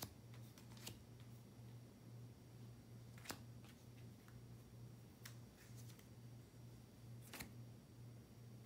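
Near silence: a low steady hum, with a few faint clicks, about four spaced roughly two seconds apart, from baseball trading cards being handled.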